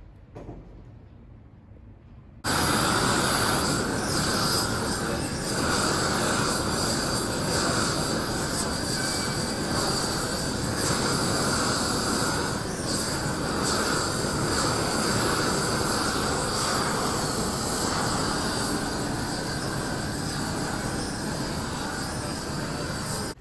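Propane blowtorch fed from a gas cylinder, burning with a loud, steady rushing noise as its flame scorches a plywood tabletop. It starts abruptly about two and a half seconds in and cuts off suddenly near the end.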